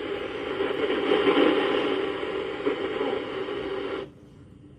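Weather radio's speaker playing a weak, distant NOAA Weather Radio station: mostly hiss and static with the broadcast barely coming through. The signal cuts out suddenly about four seconds in.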